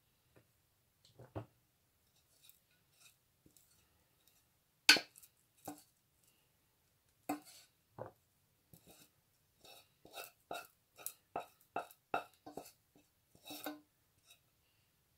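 Cooked rice being scraped out of a metal pot into a plastic tub: scattered scrapes and knocks against the pot, with one sharp knock about five seconds in and a quicker run of knocks, about two or three a second, in the second half.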